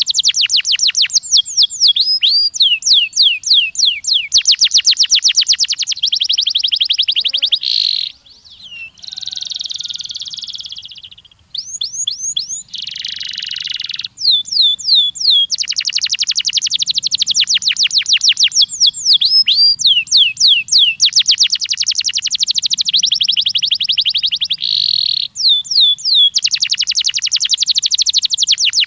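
Domestic canary singing: long fast trills of rapidly repeated high notes alternating with rolls of sweeping notes. It has a short break about eight seconds in, followed by two harsher, buzzing phrases before the trills resume.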